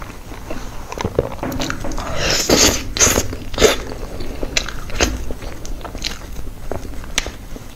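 Close-miked mouth sounds of eating soft cream cake: wet chewing and lip smacks, many short clicks. A spatula scraping cream up off a board, densest about two to three and a half seconds in.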